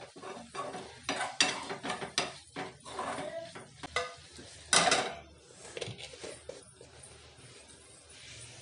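Metal spoon clinking and scraping against a steel pan of chicken masala as it is stirred, then one loud metal clank about five seconds in as a steel lid is set on the pan; quieter after.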